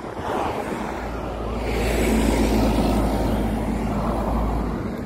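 Road traffic passing close by on a highway, a car going past with engine and tyre noise that swells to its loudest about two seconds in and eases off near the end.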